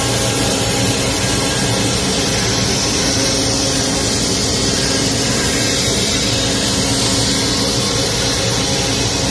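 Routmac YL-12242R CNC router's spindle running and its bit cutting curved slots in a plywood panel: a steady, loud whir with several steady tones under dense cutting noise.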